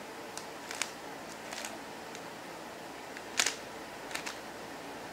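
QiYi Windmill Cube's plastic layers being turned by hand: a handful of separate short clacks, the loudest about three and a half seconds in, over a steady hiss.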